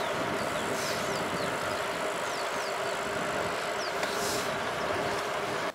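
Steady rushing travel noise of a moving vehicle on the road, with a low steady hum. Short high falling chirps come every second or so.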